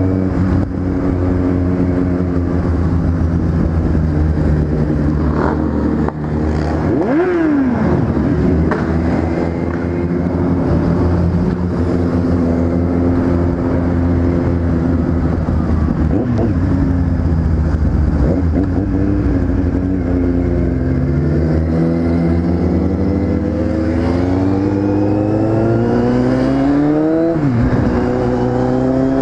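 Kawasaki Z750 motorcycle engine running under way, mostly at steady revs. The revs climb and drop sharply about seven seconds in, then build through a long rise before dropping sharply again near the end.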